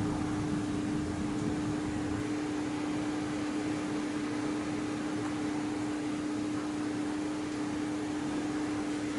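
Steady hiss with a constant mid-pitched hum running under it, as a low thunder rumble dies away in the first moment.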